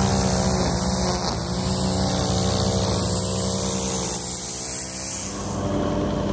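An engine running under changing load, its pitch dipping and recovering several times over a steady hiss. The hiss fades about five and a half seconds in, leaving a steadier low engine note.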